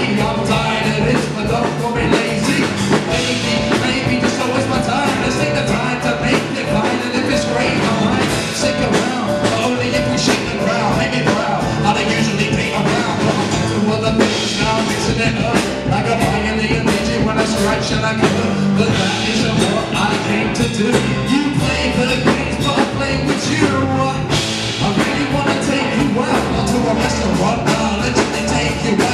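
Rock song with a steady drum beat and singing.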